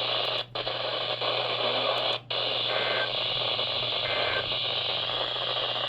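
Static hiss from a weather radio receiver on a weak, noisy signal, with a steady low hum underneath. The hiss cuts out briefly twice, about half a second in and again about two seconds in.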